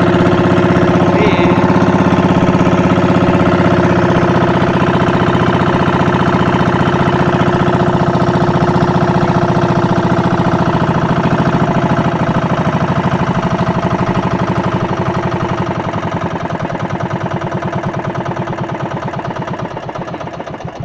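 A small engine running loud and steady, then slowing and dying down over the last several seconds.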